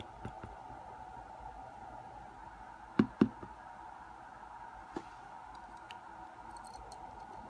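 Small sharp clicks and taps of tweezers handling the pins and springs of a disassembled pin-tumbler lock, two loud clicks close together about three seconds in and a few lighter ticks after, over a faint steady hum.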